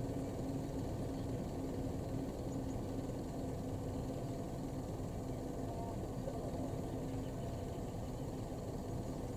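Mercedes-Benz pigeon transport truck's diesel engine idling, a steady low rumble with a faint even hum.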